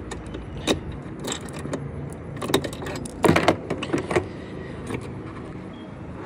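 Irregular clicks and light rattles as the plastic twist handle of a Rotopax pack mount is turned and tightened down on the fuel can, with keys on a ring jangling. A cluster of louder rattles comes a little past halfway.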